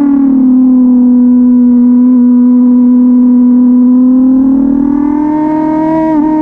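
1999 Suzuki GSX-R750 SRAD's inline-four engine running at high revs, heard onboard the bike. Its note settles a little lower and holds steady through a corner, then climbs again from about four seconds in, with a brief dip near the end.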